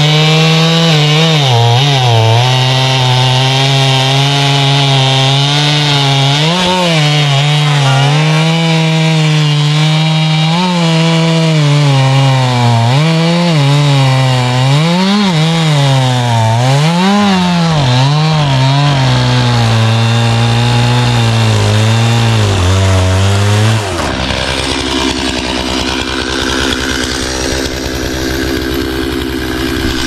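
Two-stroke chainsaw cutting through large pine logs. The engine pitch rises and falls over and over as the saw is throttled up and bogs down in the cut. About three-quarters of the way through, the sound drops suddenly to a quieter, lower running.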